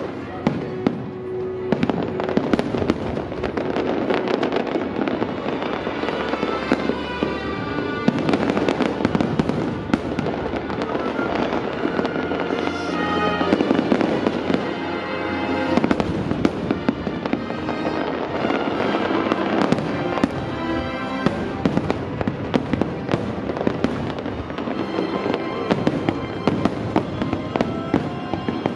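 Aerial fireworks bursting in rapid succession, many sharp bangs and crackles one after another, over the show's music soundtrack.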